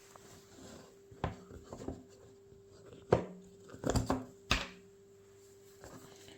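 A Rubik's Cube's packaging being handled and opened by hand: a handful of sharp clicks and knocks spread over a few seconds, over a faint steady hum.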